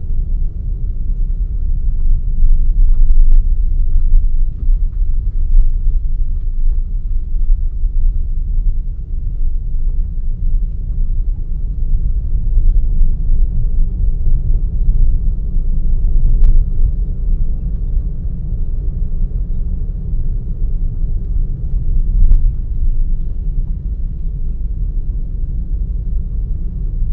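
Steady low road and engine rumble of a moving car heard from inside, with a couple of faint clicks.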